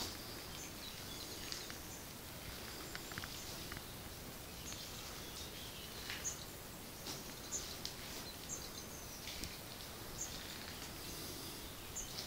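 Faint, scattered songbird chirps over quiet outdoor ambient hiss.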